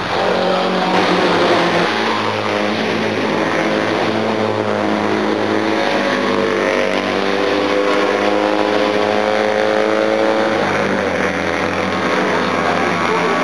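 Engines of classic racing vehicles running on the circuit, a steady engine note whose pitch slowly rises and falls.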